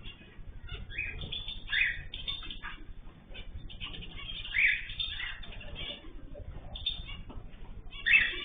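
Mixed pet cage birds (cockatiels, canaries, zebra finches and goldfinches) chirping and calling, with wings flapping. Three louder calls stand out: about two seconds in, near the middle, and near the end.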